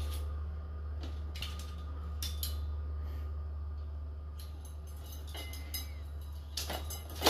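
A kitten's claws and paws clicking and tapping on the stainless-steel rods of a clothes-drying rack as it climbs and hangs, scattered light ticks over a steady low hum, with a few louder knocks near the end.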